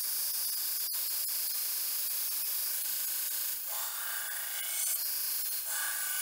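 Belt grinder running with a steady motor hum while a 5160 steel sword blade is ground against the belt: a continuous rasping hiss that turns harsher twice in the second half as the blade is pressed in harder.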